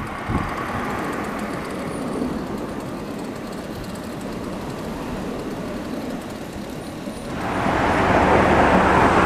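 Steady road traffic noise from passing cars, growing much louder about seven seconds in as cars pass close by.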